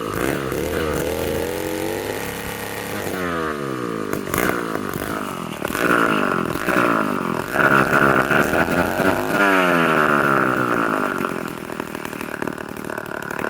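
Gear-driven David Bradley 360 chainsaw, fitted with a second bar, running and revving up and down several times. It holds high speed for several seconds in the middle, then drops back toward idle near the end.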